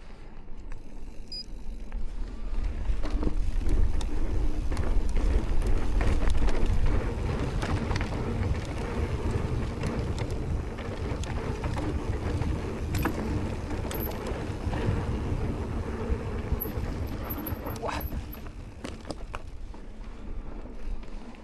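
Amflow electric mountain bike riding a trail: a constant low rumble of tyres and wind on the microphone, with scattered clicks and rattles from the bike over bumps.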